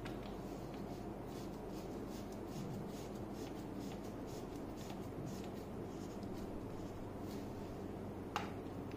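Faint handling noise from hands moving a plastic-bodied corded power drill, with light rubbing and small ticks and one sharp tap near the end.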